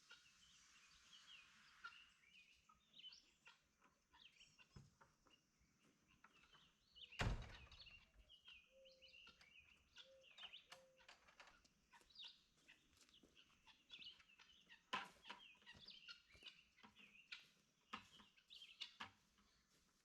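Faint bird calls, short chirps and clucks scattered throughout, with a few soft knocks and a louder thump about seven seconds in.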